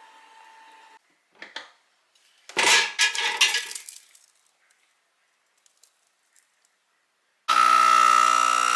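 A brief clatter of hard objects clinking together, like glass or dishes, a few seconds in. Near the end a loud, sustained ringing sound with many overtones starts abruptly and slowly fades.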